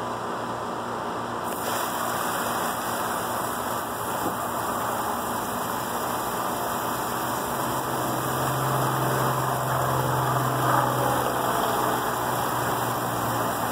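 Water spraying from a garden hose nozzle onto large banana leaves: a steady hiss. A low steady hum runs underneath and grows louder for a few seconds past the middle.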